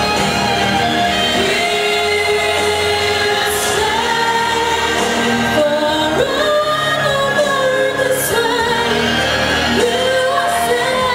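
A female voice singing a song with long held notes into a microphone over an instrumental backing track, amplified through the hall's speakers.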